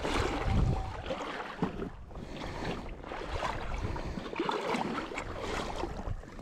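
River water sloshing and splashing in the shallow current close to the microphone, with irregular small splashes throughout. Low wind rumbles on the microphone in the first second or so.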